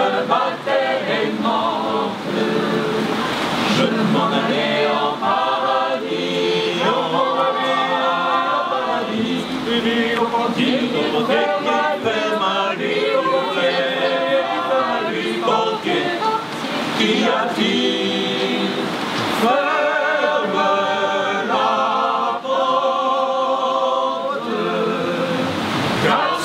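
A group of voices singing a song together in chorus, a cappella or nearly so.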